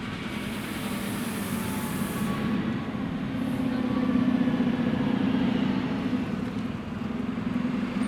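Diesel train engine running with a steady low drone that grows louder in the middle, with a high hiss over the first two seconds.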